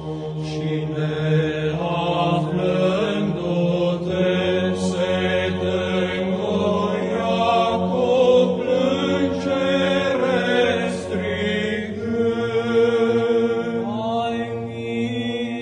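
Orthodox church chant in Romanian: voices sing a slow melodic line over a held drone note, which moves to a lower pitch about twelve seconds in.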